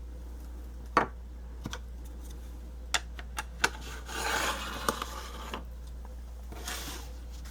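Hand stamping on a craft table: a few sharp taps and clicks as the stamp and tools are handled and set down, with a short rubbing scrape about four seconds in as the stamp is pressed onto the cardstock tag. A low steady hum lies underneath.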